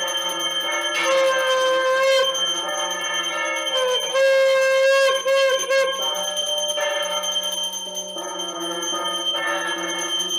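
Small brass puja hand bell (ghanta) rung continuously in ritual worship, with its steady high ringing running through, over music with a wind-instrument melody.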